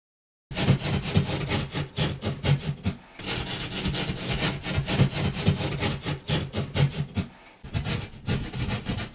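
Drywall jab saw cutting through a wall panel in quick back-and-forth strokes. The sawing starts about half a second in and pauses briefly twice, once about three seconds in and once near the end.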